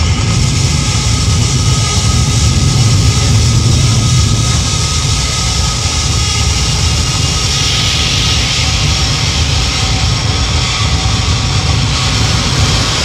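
Live electronic drone music: a dense, steady wall of low rumble under a layer of hiss, with no beat. The hiss grows brighter about halfway through.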